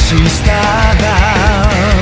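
Loud rock music with a regular drum beat; about halfway through, a melody line with wide vibrato comes in.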